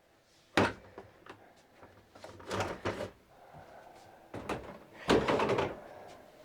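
Harbor Freight Quinn socket set and its plastic case being handled: a sharp snap about half a second in, scattered clicks, then two bursts of clattering, the second, a little after five seconds, the loudest.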